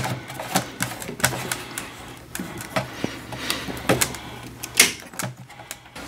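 Sharp, irregular clicks and knocks from a metal breaker-panel door being handled and circuit breakers being switched off to cut power to the electric water heater, over a steady low hum.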